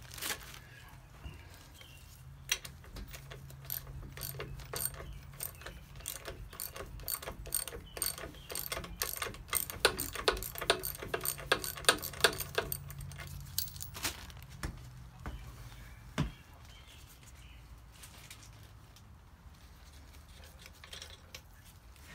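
Ratchet wrench clicking in quick runs as a nut on an air-cooled VW engine case is backed off. The clicking grows faster and louder toward the middle, then stops about two-thirds of the way through.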